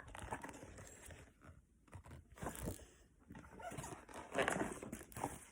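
Faint rustling and crinkling of paper as a picture book's pages are handled and turned, in irregular bursts, the strongest about halfway through and near the end.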